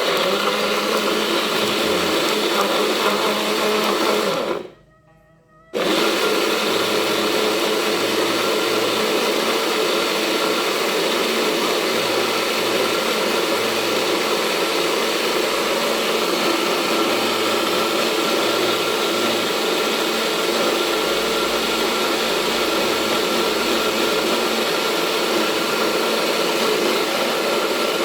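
Electric kitchen blender running, grinding ginger, turmeric, garlic and palm sugar with Yakult into a liquid. It cuts out for about a second between four and six seconds in, then starts again and runs steadily.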